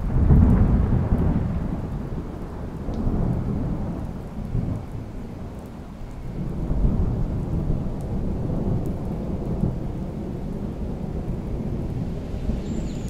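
Thunder rumbling over steady rain in a thunderstorm. The rumble is loudest right at the start, dies down, then rolls in again about seven seconds in.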